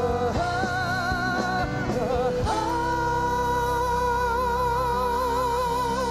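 Male vocalists singing long held notes with vibrato over live band accompaniment; one note breaks off partway through and a new long note is taken up about two and a half seconds in.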